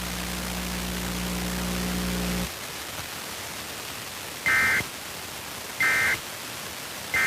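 Emergency Alert System test broadcast received over the radio: a low steady hum under hiss stops about two and a half seconds in, then three short bursts of SAME digital data tones about a second and a half apart. These are the end-of-message (EOM) codes that close the required monthly test.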